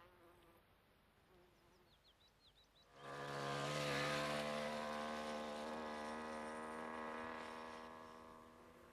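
Small two-stroke moped engine running at a steady pitch, coming in suddenly about three seconds in and fading away near the end as the moped rides off.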